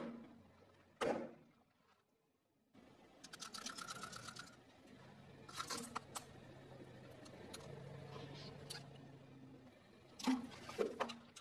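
A car tyre rolling over and crushing objects on a concrete floor: a loud burst about a second in, then a run of rapid crackling crunches, a few short crunches, and another cluster of loud crunches near the end.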